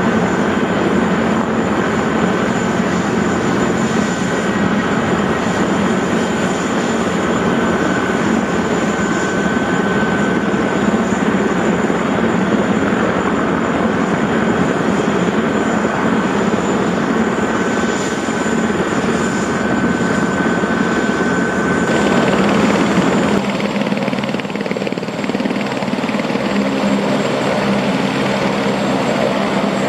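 Boeing CH-47D Chinook tandem-rotor helicopter running loud and steady, with a high turbine whine over the rotor noise. About 23 seconds in, the sound gives way to a lighter Airbus H125 single-rotor helicopter.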